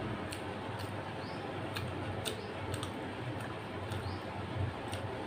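Wet, sticky eating sounds: sharp little clicks of chewing and of fingers squeezing rice into mutton curry on a plate, every half second or so, over a steady low hum.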